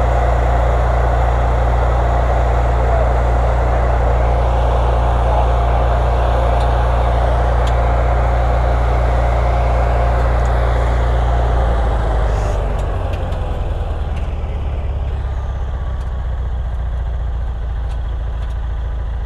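A motor vehicle's engine running steadily, then dropping in speed about twelve seconds in and carrying on at a lower, rougher idle.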